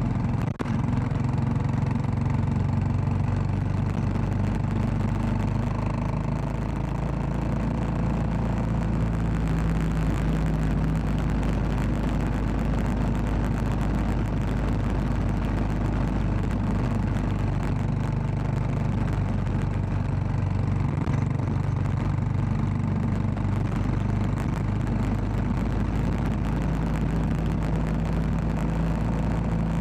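Royal Enfield Classic 500's single-cylinder engine running under way on a ride, its low engine note holding steady and shifting now and then, over a steady hiss. There is a brief drop in sound about half a second in.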